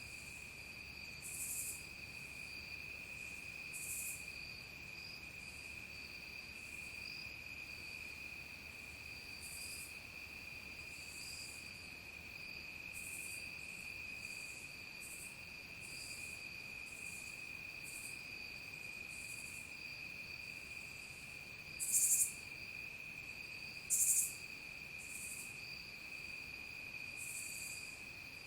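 Evening insect chorus: a steady, unbroken high trill, with short higher-pitched buzzy calls every second or two on top, two of them much louder about three-quarters of the way through.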